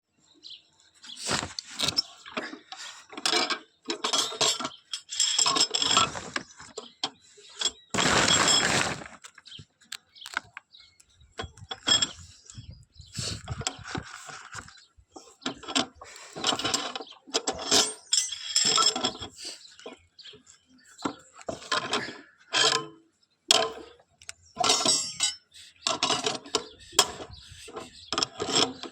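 Irregular knocking, scraping and clinking of hard objects, some strikes with a brief metallic ring.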